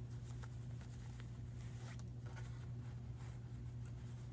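Faint rustling and light taps of a fabric face mask with elastic loops being handled and set down on a wooden table, over a steady low room hum.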